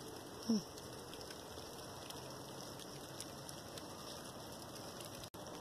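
Steady rain falling. About half a second in, a short sound drops sharply in pitch.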